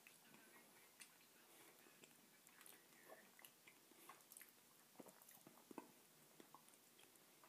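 A person chewing a scorpion from a Hotlix candy lollipop: faint, irregular crunches and small clicks, several a second.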